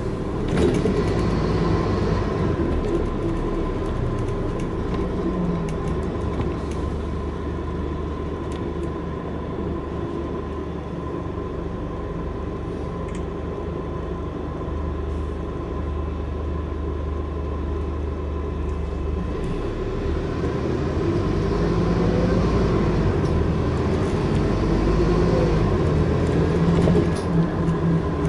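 Scania N230UD double-decker bus heard from inside, its diesel engine running under a low road rumble with a steady whine. The engine note is quieter in the middle, then rises in pitch and gets louder again near the end as the bus picks up speed.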